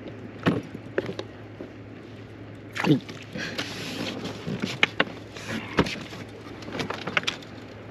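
Irregular knocks, clicks and rustles of fishing tackle being handled aboard an inflatable rubber boat while jigging, over a low steady hum.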